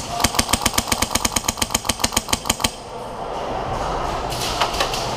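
Airsoft rifle firing a full-auto burst of about twenty shots, roughly eight a second, that stops after nearly three seconds.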